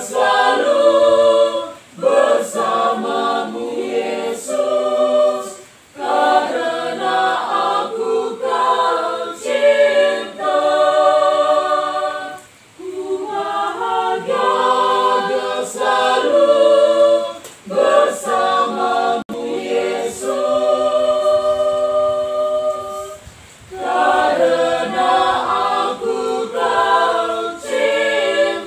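Mixed choir of young women and men singing unaccompanied, in sung phrases broken by short pauses for breath.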